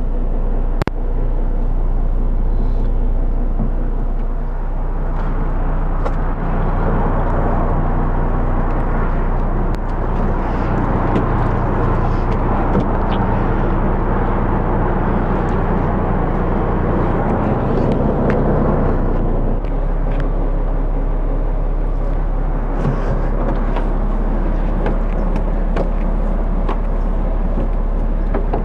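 Diesel engine idling steadily, a low hum of several held tones. A rushing noise swells over it from about six seconds in and drops away abruptly about two-thirds of the way through.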